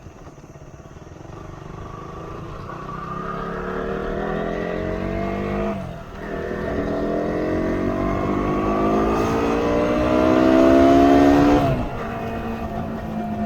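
Motorcycle engine accelerating through the gears: its pitch rises steadily, drops sharply at a shift about six seconds in, then climbs again, louder. It drops once more near the end and settles lower.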